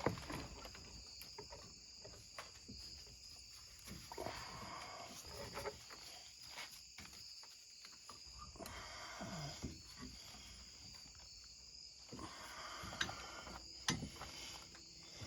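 Faint, scattered clicks and knocks of hand tools and metal parts being handled during brake work, with a few sharper clinks near the end, over a faint steady high hiss.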